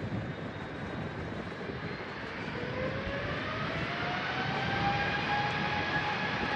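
Jet airliner's engines spooling up to takeoff power: a whine rises from about two and a half seconds in and then holds steady over a growing rumble.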